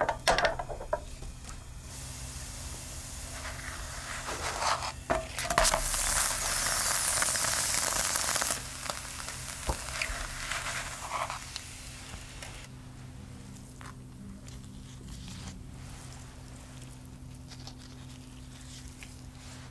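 Thin crepe batter sizzling in a hot non-stick frying pan, with a spatula scraping and clicking against the pan. The sizzle swells loudest about six to eight seconds in and dies down after about twelve seconds.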